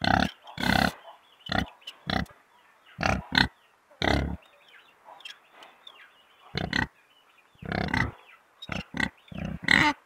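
Domestic pigs grunting: a dozen or so short grunts in irregular succession, with a pause of about two seconds midway.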